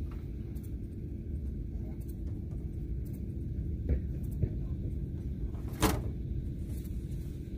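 A few knocks and clunks from someone working inside a homemade rocket's metal capsule, the loudest a sharp knock about six seconds in, over a steady low rumble with a faint hum.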